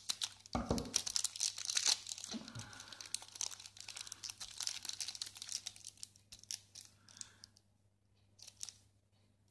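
Plastic shrink-wrap on a deck of game cards crinkling and tearing as it is cut and pulled open, in quick runs of crackly rustling that thin out after about seven seconds, with one short rustle near the end.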